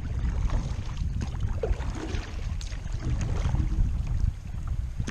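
Kayak being paddled down a river: small paddle splashes and moving water under a steady low rumble of wind on the microphone.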